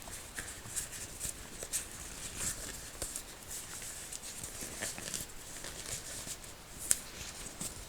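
A black disposable glove being slowly worked onto a hand, close to the microphone: soft, irregular rustling and small crackling ticks of the glove material, with one sharper tick about seven seconds in.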